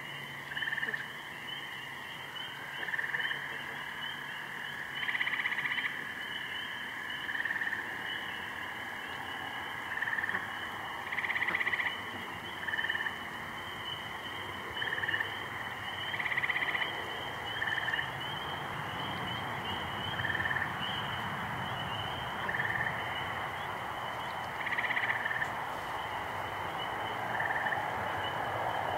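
Night frog chorus from a swamp: a steady, high-pitched calling chorus, with short, louder frog calls standing out about every one to two seconds.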